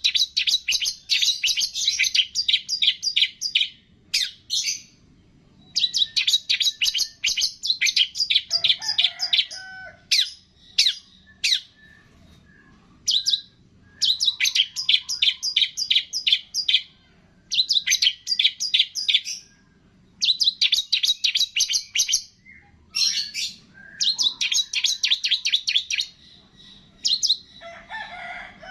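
Songbird singing in phrases of fast, sharp repeated chirps, about eight to ten a second, each run lasting one to three seconds with short pauses between, and a few single sharp calls in the gaps.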